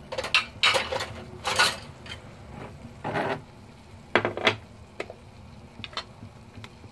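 Kitchenware clattering: a quick run of knocks and scrapes in the first two seconds, then a few more clunks and some light clicks toward the end.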